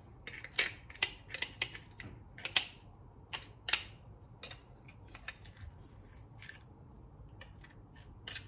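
Knife blade scraping and tapping crushed garlic out of a garlic press: a string of irregular sharp clicks and scrapes, busiest in the first four seconds and sparser and fainter after that.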